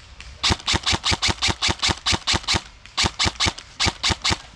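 A rapid, even series of sharp knocks, about five a second, in two runs with a short break about two and a half seconds in.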